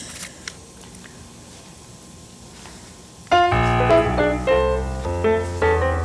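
Quiet room noise with a couple of faint clicks, then, about three seconds in, piano-like keyboard music with a bass line starts abruptly: the show's opening music.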